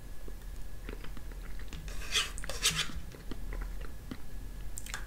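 Quiet eating of a gelatin snack: a metal spoon scraping and clicking against a small plastic cup in a few short strokes, with soft mouth sounds of eating the jello.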